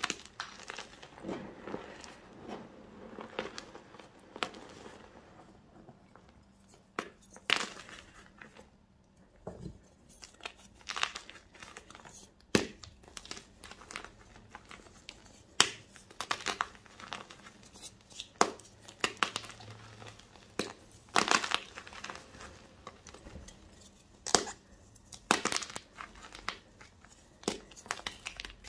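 Bare hands crushing and crumbling blocks of gym chalk into loose powder: soft crumbly crunching with sharp snaps at irregular moments as pieces break off.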